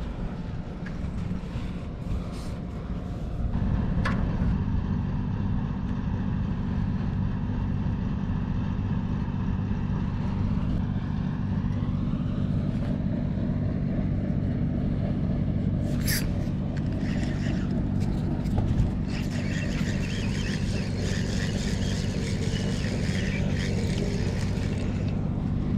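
A motor vehicle's engine running steadily, starting up in loudness about three and a half seconds in, with a sharp click about sixteen seconds in.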